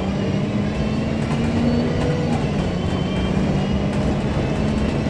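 Enviro 200 MMC single-deck bus's diesel engine and drivetrain running while the bus is under way, heard from inside the passenger saloon. It is a steady drone with a hum that shifts slightly in pitch.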